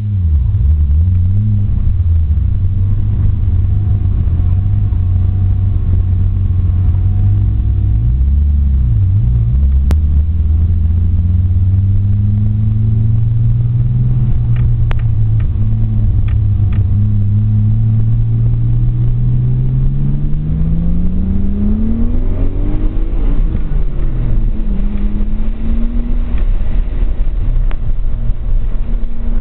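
Nissan RB20DET turbocharged inline-six in a 1992 240SX, heard from inside the cabin under track driving. Revs dip and recover a few times, then climb steadily for about ten seconds before falling back.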